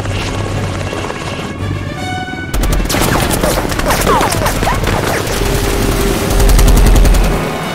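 Action-film battle soundtrack with a musical score: a helicopter, then rapid heavy gunfire breaking in suddenly about two and a half seconds in, and explosions, with the loudest low blast near the end.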